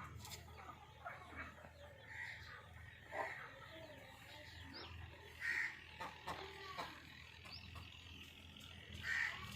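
Chickens calling, several short calls scattered through, the loudest about two, five and a half, and nine seconds in, over a steady low hum.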